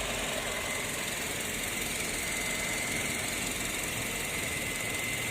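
Car engine idling steadily, with a constant high-pitched whine over an even hiss.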